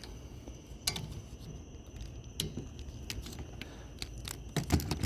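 Scattered light clicks from handling wiper-blade and windshield-cowl parts, then a quick run of louder clicks and knocks near the end as the parts are pressed into place.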